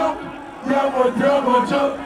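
Male voices chanting and singing a line through the stage PA, unaccompanied once the backing beat cuts out at the start.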